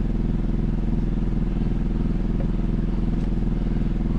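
A small engine running steadily at a constant speed, with an even low hum.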